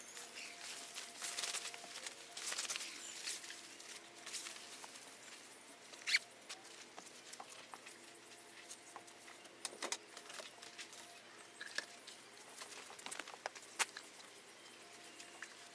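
Rustling and scattered light clicks and taps of handling, over a faint, intermittent hum.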